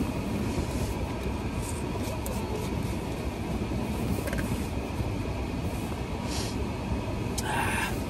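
Steady low rumble of a car heard from inside the cabin.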